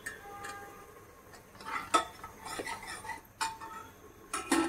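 Metal kitchen utensils clinking: a spoon knocking against a pan and dishes, about six sharp clinks that ring briefly, the loudest about two seconds in and near the end.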